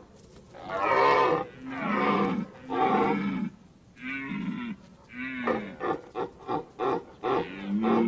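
Red deer stag roaring in the rut: three long, deep roars in the first few seconds, then two shorter ones. After that comes a quick run of short grunts, about five a second, and a final roar near the end.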